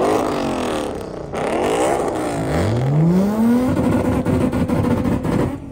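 A loud tuned car engine revving: engine pitch swings up and down twice, then about halfway through a rev climbs steeply and is held at high revs.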